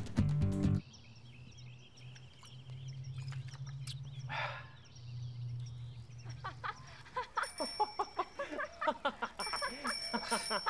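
Music cuts off about a second in, leaving outdoor ambience with birds chirping. Near the end a bicycle bell rings in two rapid trills.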